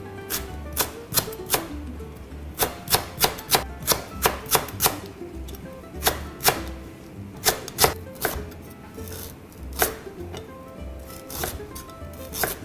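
Chef's knife slicing lemongrass, and galangal near the end, on a plastic cutting board: sharp knocks of the blade meeting the board. A quick run of about eight strokes comes a few seconds in, followed by scattered single chops.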